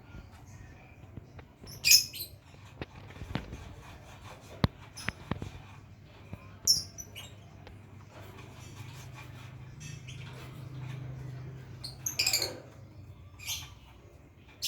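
Lovebird giving a few short, sharp high chirps, the longest about twelve seconds in, with a few soft clicks between them over a low steady hum.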